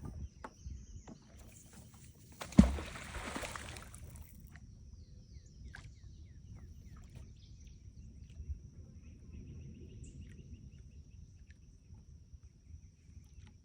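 A Brute Magnetics fishing magnet hitting the water with one sharp splash about two and a half seconds in, in a second or two of splashing and rope noise. A steady high insect drone runs throughout.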